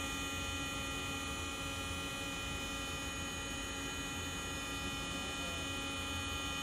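MPCNC Lowrider 2 CNC router running its finishing pass in foam with a 1/8 inch ball-nose bit: a steady electric whine and hum made of many held tones, without change.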